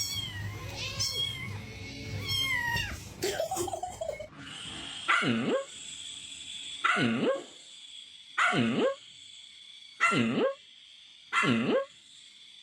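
A pet animal calling over and over: six loud, alike calls about a second and a half apart, each dipping in pitch and rising again. Higher chirping sounds come before them.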